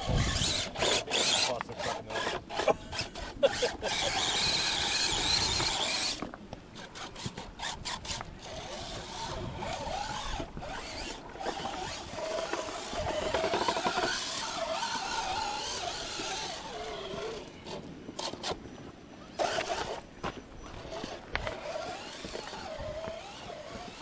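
Radio-controlled rock crawler's electric motor and gears whining as it climbs over boulders, with knocks and clatter of its tyres and chassis on the rocks, densest in the first few seconds.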